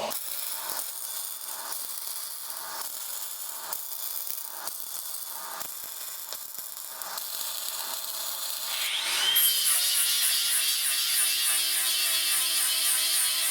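Hand tool working metal in repeated scraping strokes, about one or two a second. About nine seconds in, a small electric power tool starts with a rising whine and then runs steadily.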